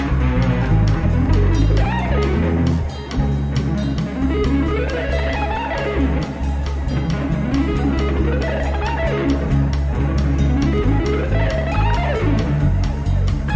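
Instrumental rock-funk band music: electric guitar lines sliding up and down in pitch over a steady bass and drum kit beat.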